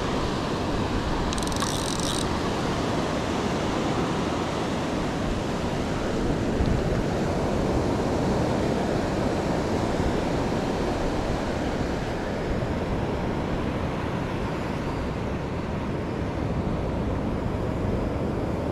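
Surf washing up on the beach, with wind on the microphone: a steady rumbling hiss.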